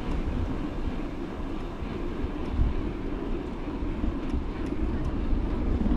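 Steady low rumble of wind buffeting the microphone and bicycle tyres rolling on asphalt while riding, with a few faint ticks near the middle.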